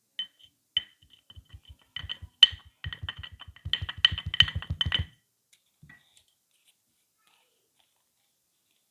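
Crunchy kinetic sand being cut: a run of crisp crackles, scattered at first and then quick and dense, that stops about five seconds in.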